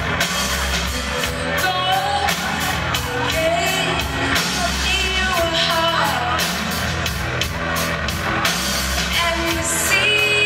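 A rock band playing live, with drums keeping a steady beat under electric guitars and bass, and a woman singing the melody over them.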